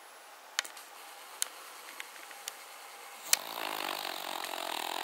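Cavalier King Charles Spaniel snoring roughly. A few sharp clicks come first, then about three and a half seconds in a long, rough, buzzing snore begins.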